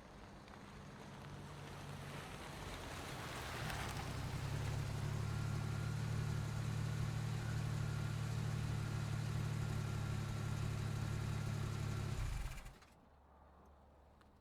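Car engine pulling in, growing louder over the first few seconds, then idling steadily before it is switched off abruptly about twelve seconds in.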